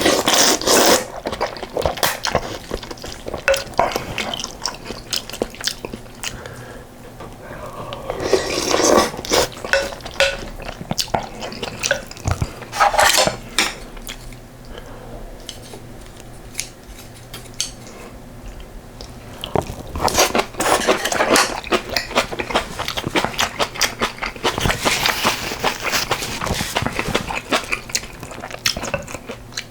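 Someone eating soup with rice and kimchi: spoon and chopsticks clinking and scraping against the bowl in several short clusters, with chewing between.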